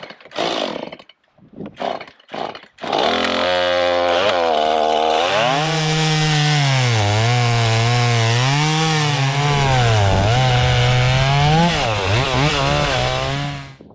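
Chainsaw starting up about three seconds in after a few short rasps, idling briefly, then revving up and down as it cuts firewood. It stops just before the end.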